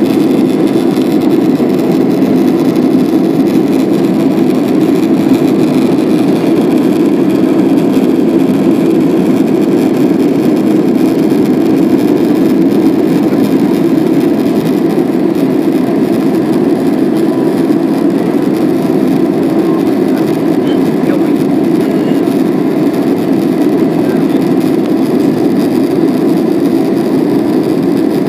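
Jet airliner cabin noise during the climb after takeoff: the engines and rushing air make a loud, steady, deep drone that does not change.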